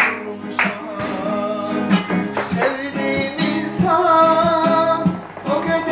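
A man singing to his own acoustic guitar, strumming chords in a steady rhythm, with one long held sung note near the middle.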